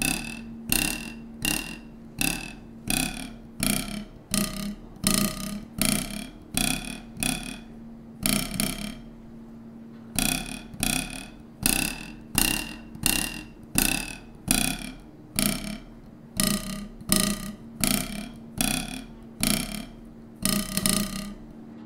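A musical ruler twanged against the edge of a desk: a steady run of short buzzing twangs, about one a second, at changing pitches as it is slid to different note marks. There is a pause of about a second and a half around nine seconds in.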